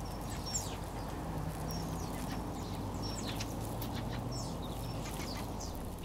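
A flock of common starlings chattering as they feed, with many short high whistles and clicks, over a steady low background rumble.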